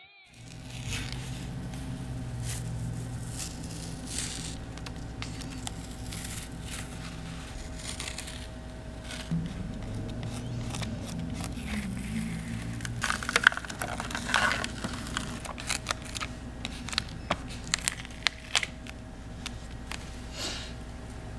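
Dried masking fluid being rubbed and peeled off watercolour paper with a fingertip: a soft rubbery crinkling and scratching that grows busier with sharp crackles about two-thirds of the way through.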